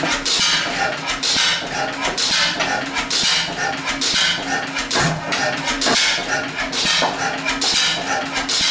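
1911 Deutz E3 stationary gas engine running, its exhaust and valve gear clattering at a regular beat over a steady hum.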